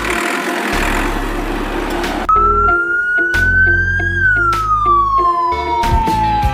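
Background music with a steady bass line under a hissing wash of noise. From about two seconds in, a single high siren-like tone with overtones enters, rises slightly and then glides slowly downward.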